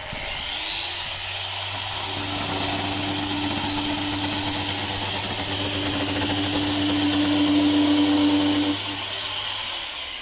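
Makita BO6050J random orbital (eccentric) sander, in rough mode, switched on and spinning up with a rising whine, then sanding the wooden sash window frame steadily, and winding down near the end.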